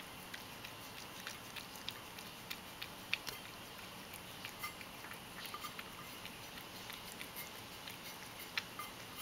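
Ragdoll cat lapping milk from a stainless steel bowl: quick, irregular small wet clicks and ticks, several a second, with a louder one about three seconds in and another near the end.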